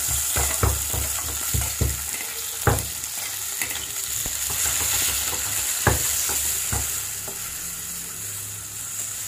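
Chopped tomatoes sizzling in hot oil in a steel pan. A metal spoon taps quickly on steel for the first two seconds, about three taps a second, then knocks a few single times against the pan as the tomatoes are stirred.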